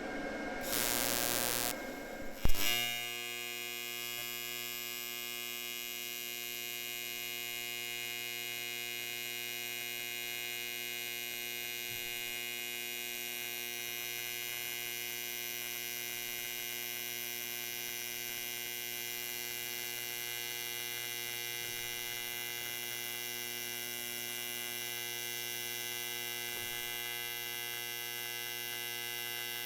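PRO-TEC 200 ACDC TIG welder's AC arc fusion-welding aluminum: a brief hiss and a sharp crack about two and a half seconds in as the arc starts, then a steady buzz at the 120 Hz AC frequency that holds for the rest of the weld.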